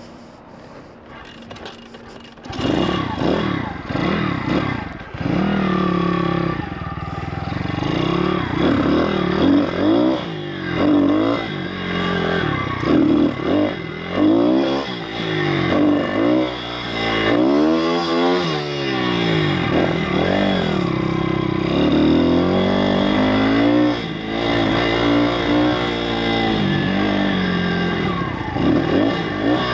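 YX 160cc single-cylinder four-stroke pit bike engine being ridden hard. After a quieter first couple of seconds, the revs climb and drop over and over.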